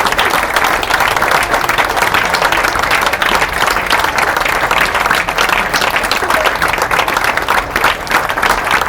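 Audience applauding, with steady sustained clapping at the end of a live song.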